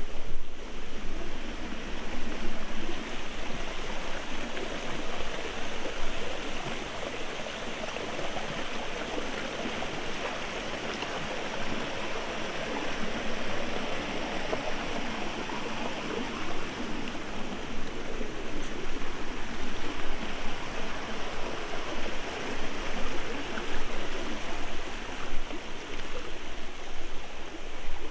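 Shallow rocky forest stream flowing over stones: a steady sound of running water.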